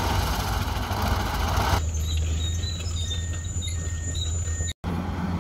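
Heavy diesel dump truck engine running with a steady low drone. For the first two seconds a loud rushing noise rides over it, then it drops abruptly to a quieter drone with faint high squeaks and whistles. There is a brief break in the sound near the end.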